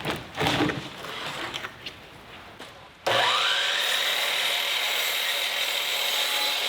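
A few wooden knocks and handling noises, then about three seconds in an electric power saw starts abruptly. Its whine rises as it spins up, and it then runs steadily at full speed, cutting thin dynamite-box boards.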